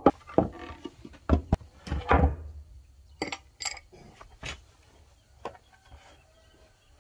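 Metal tools and a long bolt being handled and set down on a thick wooden plank: a quick run of sharp knocks and clatters in the first two and a half seconds, then a few lighter, ringing metal clinks.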